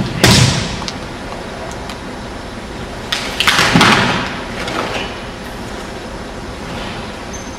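Many karateka moving through a kata together on a wooden gym floor: two sudden bursts of movement noise with a hall echo, one about a quarter second in and a longer, ragged one around three and a half seconds in, over the steady hum of the hall.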